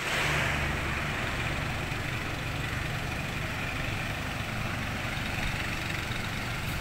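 Truck engine running steadily under the continuous hiss of a pressure sprayer jetting disinfectant mist, the hiss loudest just at the start.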